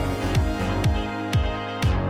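Electronic background music with a steady beat: a falling kick drum about twice a second under sustained synth tones.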